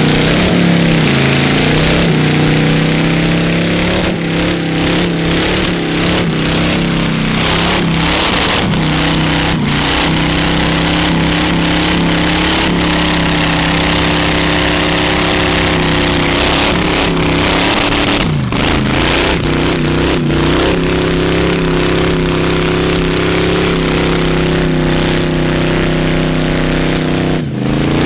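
Hot rod's exposed V8 held at high revs through a long burnout, its rear tyres spinning and hissing on the asphalt. The revs drop and pick up again briefly a few times, around 4 s in, at about 18 s and near the end.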